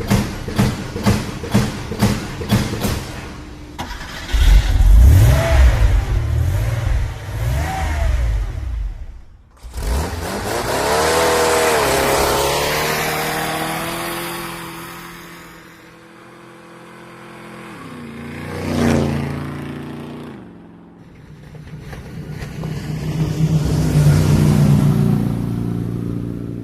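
Motor vehicle engines revving and passing by, played as a series of separate clips. It opens with a string of short revs, then has several longer runs in which the engine pitch falls and rises, with sudden cuts between them.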